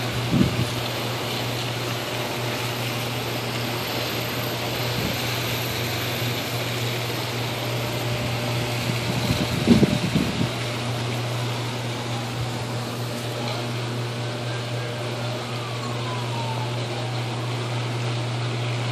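Electrical arcing from a burning utility transformer: a steady low buzz with a hiss over it. The arcing surges louder briefly, about half a second in and again about ten seconds in.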